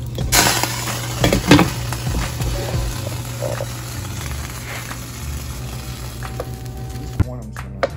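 Water hissing and bubbling in a hot pan of sweet potato slices, with a couple of knocks from handling the slices about a second and a half in.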